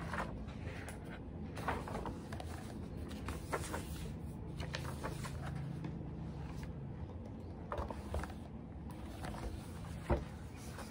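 Paper rustling as the pages of a textbook are handled and turned, with scattered light taps and one sharper tap near the end, over a steady low hum.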